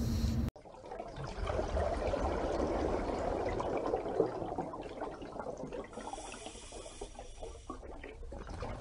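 Running, trickling water that starts abruptly about half a second in.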